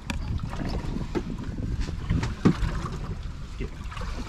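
Wind rumbling on the microphone with water sounds from a boat at sea, under scattered small knocks and one sharper knock about halfway through.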